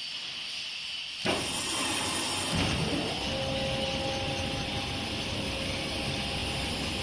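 Electric soybean peeling machine starting up. A sudden loud onset comes about a second in, then the motor spins up with a rising whine and settles into a steady running hum with two steady tones over dense mechanical noise.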